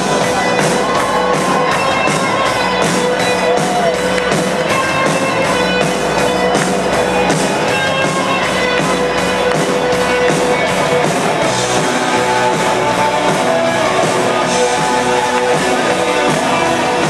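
A rock band playing live: electric guitar and drum kit over a steady beat, with sustained notes.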